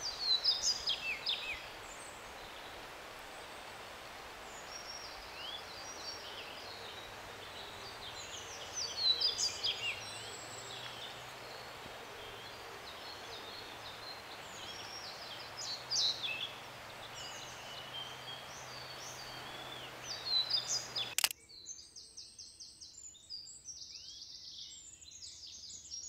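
Several songbirds singing, short high song phrases coming every few seconds over a steady hiss. About 21 seconds in the hiss cuts out and a quicker run of high, repeated song notes follows.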